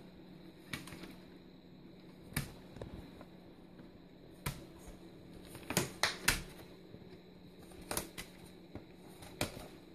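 Plastic DVD cases and discs handled: irregular light clicks and taps, about eight in all.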